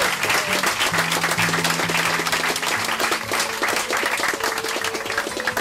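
Guests clapping over music with steady sustained notes. The clapping thins out toward the end while the music carries on.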